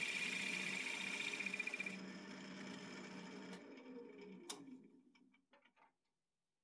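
Wood lathe spinning with a gouge cutting the inside of a red cedar box lid, a steady hiss of shavings. About two seconds in the cut stops and the lathe winds down to a stop, with a sharp click and a few light ticks as it comes to rest.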